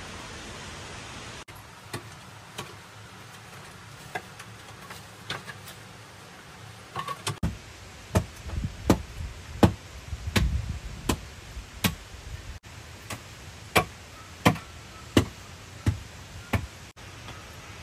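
Hand digging tools, a pick and shovel, striking packed earth and stones at a cave mouth. The sharp knocks come a few at a time at first, then fall into a steady rhythm of about one hit every 0.7 s for the second half.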